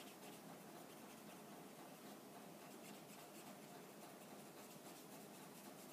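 Faint, soft scratching strokes of a water brush's bristles on watercolour cardstock, over low room tone.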